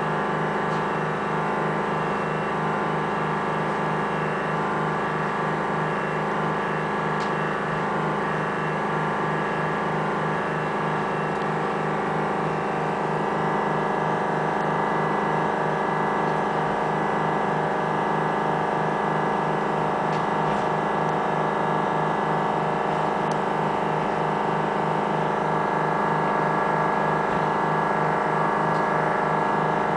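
Diesel railbus engine and transmission running steadily under way, a droning hum with several steady tones, heard from inside the passenger cabin. It grows slightly louder about halfway through.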